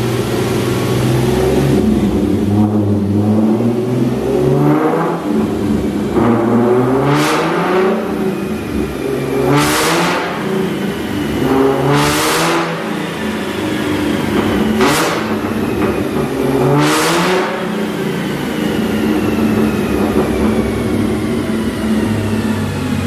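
A car engine running and accelerating while driving, its pitch shifting as it goes. About six loud rushing whooshes swell and fade over it.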